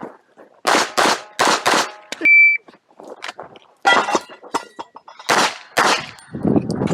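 Pistol shots, about eight, mostly fired in quick pairs, with a brief high steady ring about two seconds in.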